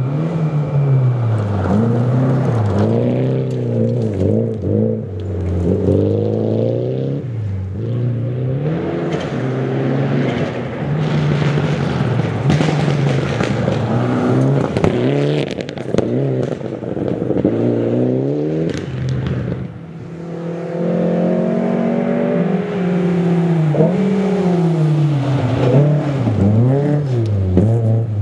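Rally cars driven hard one after another on a gravel stage, among them a Mitsubishi Lancer Evolution VI and a Datsun 1600. Engines rev up and fall back again and again through gear changes and lifts, with a brief lull about two-thirds of the way through before the next car comes in.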